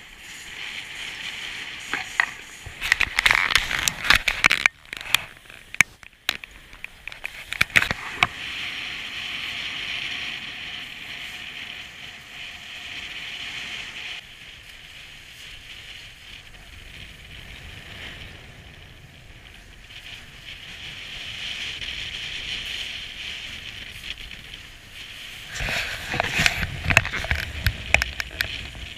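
Snowkiting ride over stiff snow: a steady hiss of wind and sliding over the snow, broken by loud bursts of crackling, scraping chatter from about two to eight seconds in and again near the end.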